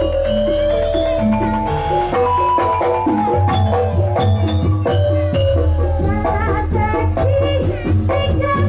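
Javanese gamelan music accompanying a jatilan dance, with struck metal keys playing quick runs of short notes over a steady low bass.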